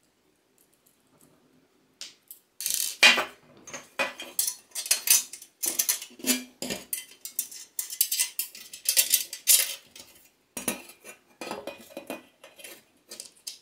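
Metal parts clinking and clattering while being handled: a jigsaw table's galvanized steel working plate and its parallel guide being turned and a small adjusting screw fitted. It starts about two and a half seconds in, as a quick run of sharp clicks and knocks.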